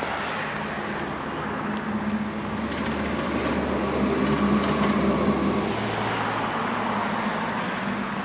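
A motor vehicle passing on a nearby road: a steady engine hum and tyre noise that swells to a peak about four to five seconds in, then eases as the deep rumble drops away.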